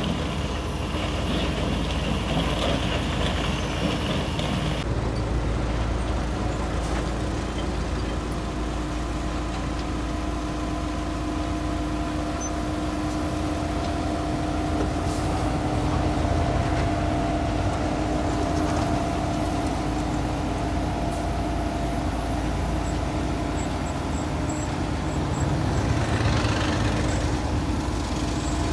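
Heavy diesel engines of excavators and other earth-moving machinery running steadily, a constant drone with a fixed pitch. The sound changes about five seconds in, and swells briefly near the end.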